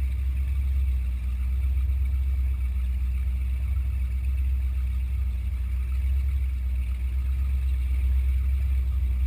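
Powerboat engine running steadily, heard from on board as a low, even drone with a faint hiss over it.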